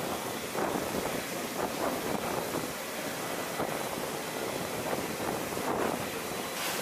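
Water sprayed by an autonomous robotic aircraft washer onto the underside of an F-16's wing: a steady hiss and splatter of spray hitting the metal, with small swells.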